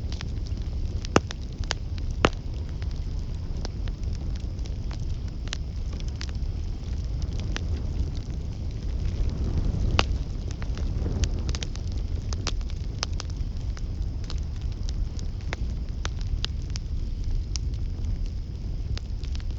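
Campfire burning: a steady low rumble of flames with irregular sharp crackles and pops, a few louder pops early on, and the flames swelling briefly near the middle.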